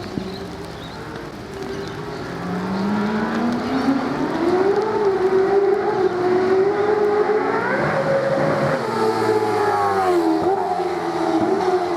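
The 5.0L flat-plane-crank Mercedes-Benz M159 V8 of a V8 Supercar under acceleration, with a high, siren-like note. It grows louder over the first few seconds and the revs climb steadily. About eight seconds in the pitch drops at a gearshift, and there is another brief dip about ten and a half seconds in.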